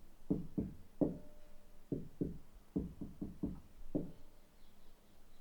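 Drumming in the flat above, heard through the ceiling: about eleven dull drum hits in an uneven rhythm, a few of them leaving a short ringing tone.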